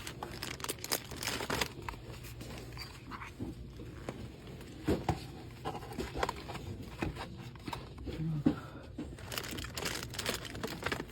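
Gift boxes and wrapping being handled: crinkling and rustling, with light knocks and clicks, and denser rustling near the start and again near the end.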